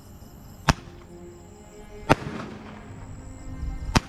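A 'Magic Rider' firecracker going off: three sharp bangs about a second and a half apart, each with a short fading echo.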